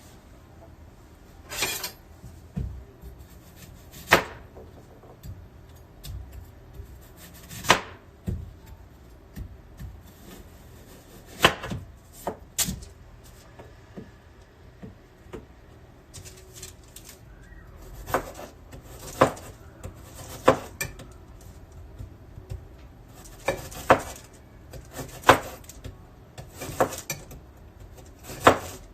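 Knife striking a cutting board in sharp, irregular single strokes, sparse at first and coming more often in the second half, as food is cut.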